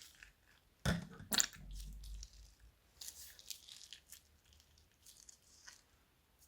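Slime being squished and pressed by hand: a couple of sharp wet pops about a second in, then softer crackling squishes.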